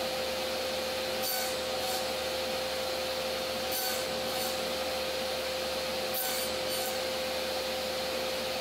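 Mini table saw running with a steady whine, its blade cutting through the wood in several short passes, about every two to three seconds, as the crosscut sled is pushed through. The blade is set low to cut the shallower face of a tenon.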